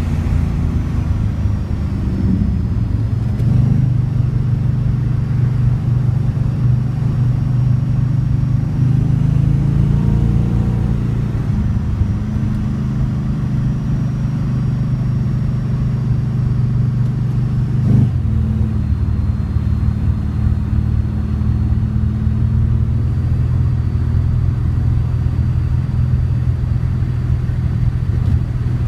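Corvette Stingray's 468 cubic-inch big-block V8 running under way, a deep steady engine note that rises briefly early on and changes abruptly with a short knock about eighteen seconds in.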